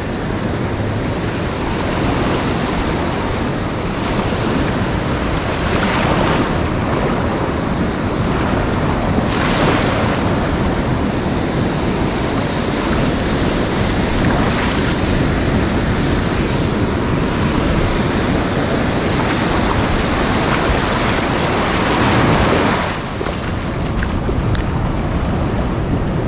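Ocean surf breaking and washing up a beach in a steady roar that swells every few seconds as waves break, with wind buffeting the microphone.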